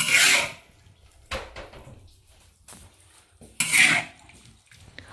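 A metal spatula scraping and knocking in a large iron wok as stewed greens and potatoes are stirred and scooped. There are two short scrapes, one at the start and one about three and a half seconds in, with a few light knocks between them.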